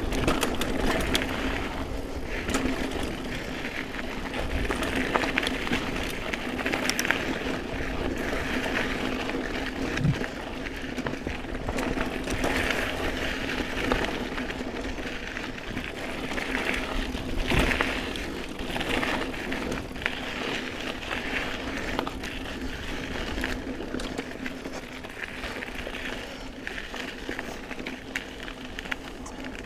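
Hardtail mountain bike (GT Aggressor Pro) rolling along a dirt singletrack trail: steady tyre and rolling noise with frequent small rattles and knocks from the chain and frame over bumps.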